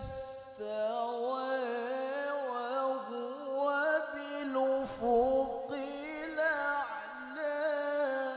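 A male qari reciting the Quran in a high, melodic voice through a microphone: long held notes bent through wavering, melismatic runs, drawn out with only brief breaths between phrases.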